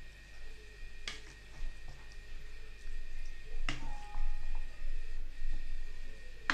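Wooden spoon scooping stewed meat and potatoes from a frying pan into a ceramic bowl: soft wet scraping and squishing, with a few sharp knocks of the spoon on the bowl or pan rim.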